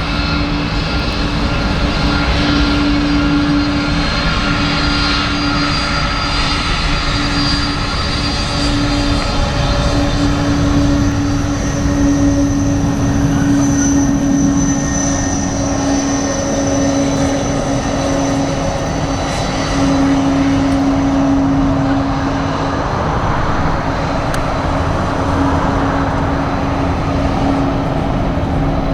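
Airbus A300-600F freighter's twin jet engines running at taxi power as the aircraft rolls past close by: a steady drone with a constant hum tone and a faint high whine above it.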